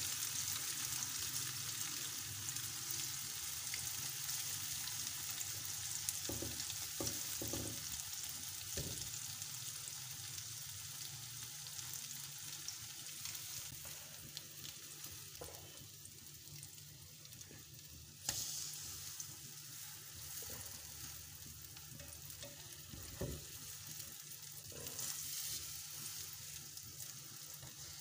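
French toast (bread slices soaked in egg and milk) frying in oil in a non-stick pan on a low flame: a steady sizzle that slowly fades, jumping up suddenly about two-thirds of the way through.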